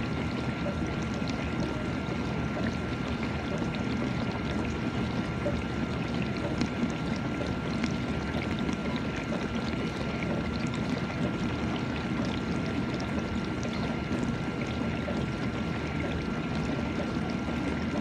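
GE dishwasher running mid-cycle: steady spraying and sloshing of water inside the tub, with small droplet ticks and a faint steady high tone.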